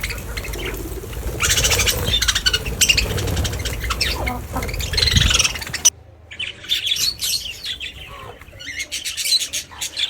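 Many birds calling at once, a dense mix of chirps and harsh squawks. A low rumble like wind on the microphone lies under the calls until about six seconds in, where it cuts off abruptly and the calls carry on, sparser.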